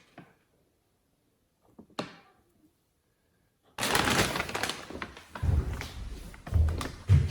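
A rustling plastic pack crinkling as kittens play with it: a couple of brief crackles, then about four seconds in a sudden burst of continuous loud crinkling and rustling with dull thumps underneath.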